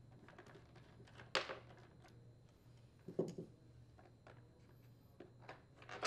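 Quiet handling sounds from a Husqvarna 150BT leaf blower's plastic blower housing as screws are worked out with a screwdriver and the housing is handled: faint scrapes and clicks, with a sharper click about a second and a half in and another about three seconds in.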